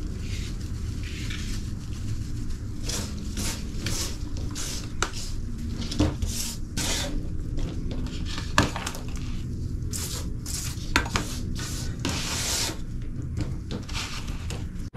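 A flat metal blade scraping chopped corn kernels across a cutting board and into a bowl: a run of short, uneven scraping strokes with a few sharp knocks of metal on the board, over a steady low hum.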